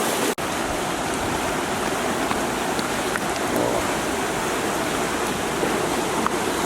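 Rushing floodwater: a steady, loud wash of fast-flowing water, cut off for an instant about a third of a second in.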